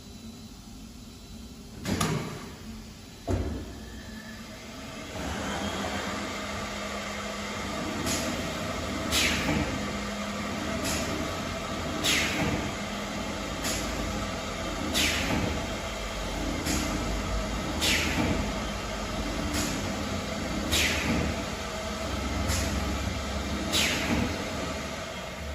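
Woodworking machine: two loud clicks, then a few seconds in it starts running with a steady hum and sharp mechanical clacks about every second and a half.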